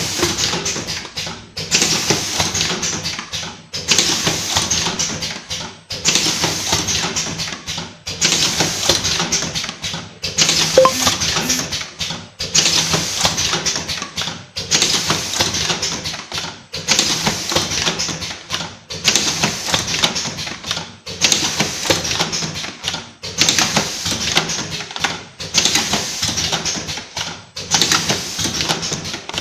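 Vertical automatic cartoning machine running: a rapid mechanical clatter of clicks that repeats in a regular cycle about every two seconds, each cycle ending in a brief pause.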